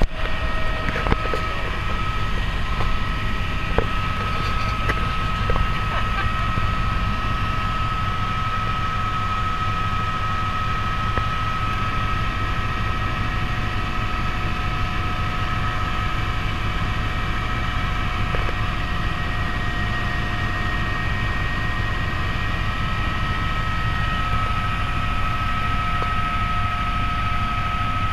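Helicopter in flight heard from inside the cabin: a steady, dense low rumble of engine and rotor with a constant high-pitched whine on top. A few light knocks in the first several seconds.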